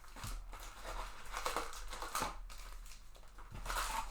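Baseball card pack wrapper crinkling and cards being handled, in a run of irregular short rustles and light clicks.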